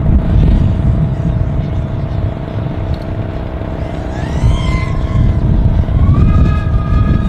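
Brushless motors of a 250-size FPV racing quadcopter whining overhead. The pitch rises about four seconds in, and again from about six seconds as the throttle goes up, then holds high. A heavy low rumble runs under it throughout.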